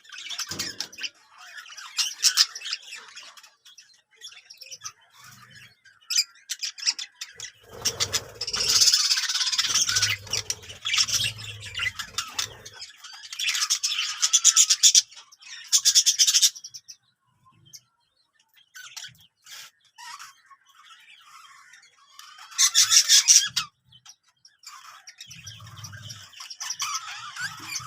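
Small birds chirping and twittering in fast, high-pitched bursts, with short quiet pauses between the bursts.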